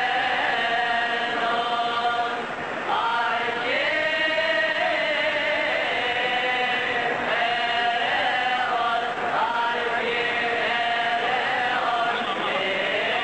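Coptic church hymn chanted by a choir, with long held notes that bend slowly up and down in drawn-out melismas.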